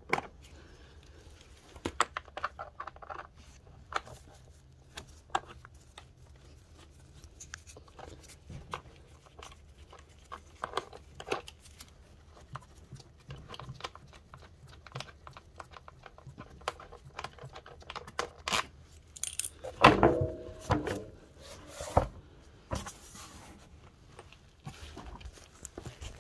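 Socket tool clicking and scraping on the bolts of a scooter's CVT cover as it is fitted and turned by hand, in scattered clicks throughout, with one louder, briefly pitched scrape about twenty seconds in.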